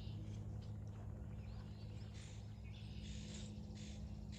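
Honeybees from an opened hive humming, a steady low drone, with short high chirps coming and going over it.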